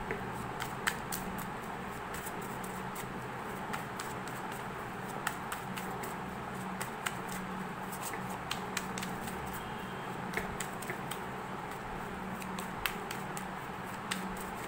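A deck of tarot cards being shuffled by hand: scattered soft clicks and slaps of cards against each other, over a steady low hum.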